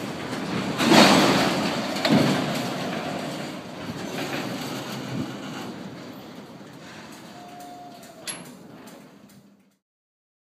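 Autorack freight cars rolling past on steel wheels over the rails, with two loud clanks about one and two seconds in. The sound fades as the train moves off, with a short high squeal near the end, then cuts off to silence.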